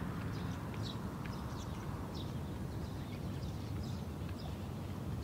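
Birds chirping in short, high calls every half second or so over a low, steady rumble.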